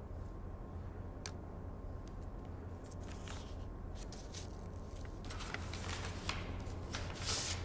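Paper sheets and a box of photographic paper being handled on a tabletop: soft rustles, slides and a few light taps over a steady low hum, with the rustling growing louder in the last couple of seconds.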